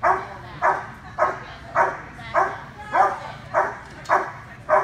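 A dog barking over and over in a steady rhythm, about nine barks at a little under two a second.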